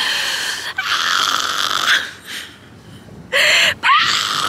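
A woman's long, loud, breathy exhales and a short whimpering cry with a rising pitch, a reaction to the freezing cold.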